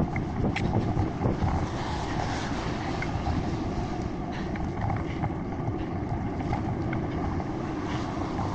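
Wind buffeting the microphone on a moving P3 Nomad single-speed bicycle ridden along a wet path, with the hiss of tyres on wet pavement and scattered small clicks and rattles.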